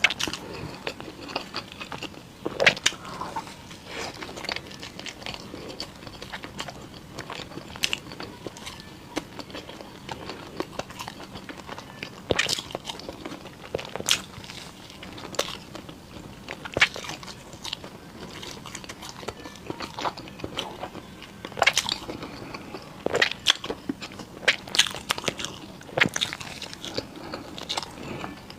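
Close-miked eating: a person biting and chewing food, with irregular crunchy and wet clicks.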